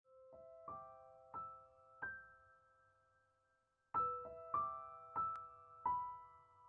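Background music: a slow, gentle solo piano melody of single notes. A few soft notes ring and die away, there is a short pause, and a louder phrase begins about four seconds in.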